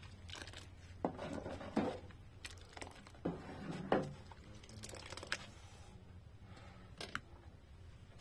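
Irregular handling sounds: about eight scattered knocks and clicks mixed with rustling and crinkling, the loudest knock about four seconds in.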